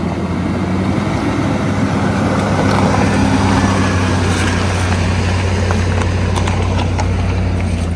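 Vehicle driving along at a steady pace: constant engine hum and road noise, with a few sharp ticks in the second half.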